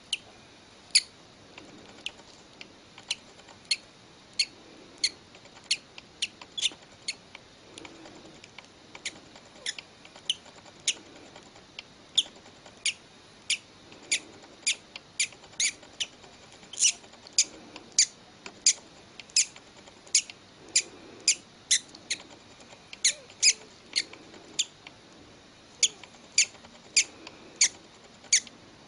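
Newly hatched bird chick peeping: short, high-pitched cheeps repeated about twice a second at an uneven pace.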